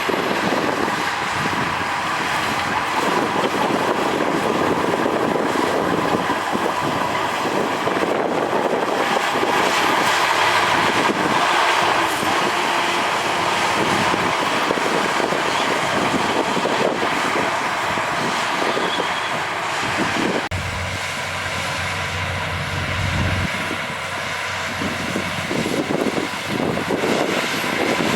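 Heavy diesel earthmoving machinery running and working, a steady engine drone. About two-thirds of the way through the sound changes abruptly and turns deeper for a few seconds.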